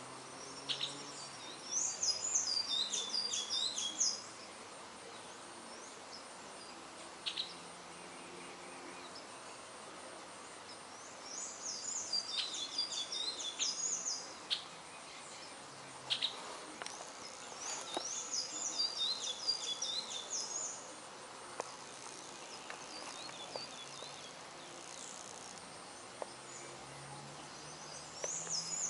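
A songbird singing fast, high chirping phrases a few seconds long, four times, with single short notes between them, over a faint buzz of bees at flowering trees.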